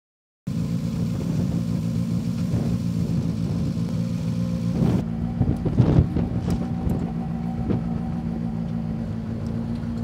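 Skoda Fabia R5 rally car's turbocharged four-cylinder engine idling steadily, starting abruptly about half a second in, with a few short knocks and clunks near the middle.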